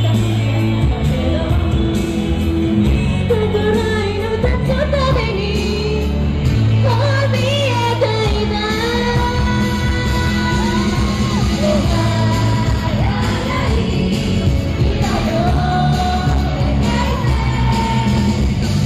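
Live band with electric guitar and drums playing an upbeat pop-rock cover of an anime opening, with several women singing into microphones.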